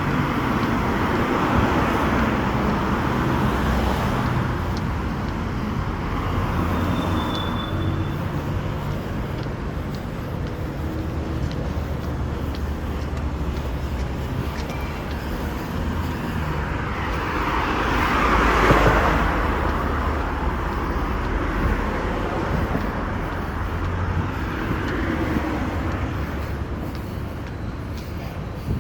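Road traffic noise: a steady wash of engine and tyre sound, with one vehicle swelling up and passing about two-thirds of the way through.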